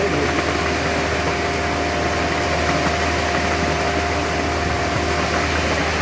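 Concrete mixer truck's engine running steadily while it turns the drum and discharges concrete down the chute: a constant low engine hum with a steady whine above it.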